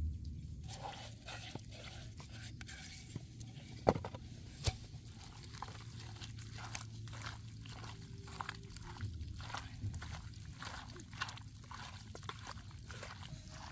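A bare hand squishing and kneading wet chopped chili paste into raw chicken wings in a bowl: a run of irregular wet squelches, with two sharper knocks about four seconds in.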